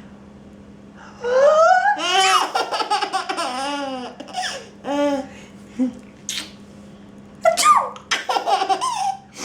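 Baby laughing in repeated bursts of high-pitched belly laughter: a long run of laughs starts about a second in, a few short laughs follow in the middle, and another run of laughs comes near the end.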